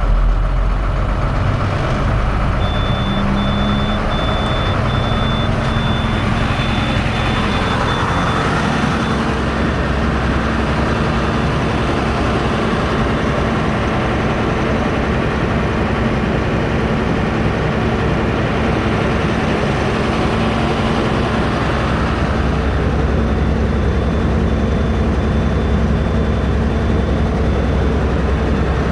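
International 7500 truck's diesel engine running steadily, an engine the owners believe has at least one bad injector. A reversing alarm beeps in an even series a couple of seconds in, stops, and starts again near the end as the truck backs up.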